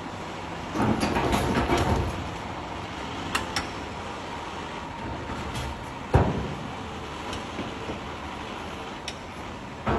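Excavator working, its engine running steadily. There is a burst of rattling knocks about a second in and one sharp bang about six seconds in.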